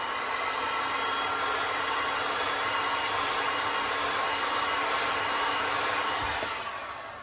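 Heat gun blowing steadily, warming the resin-covered tape so that it softens and releases; it winds down and fades out near the end.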